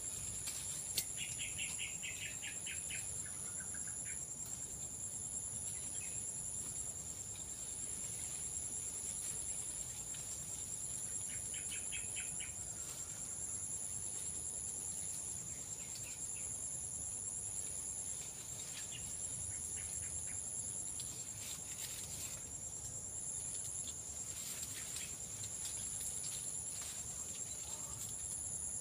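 Insects trilling steadily: one high continuous trill, and a second, higher one pulsing on and off about once a second. A bird twice gives a short run of rapid repeated notes, near the start and about halfway through.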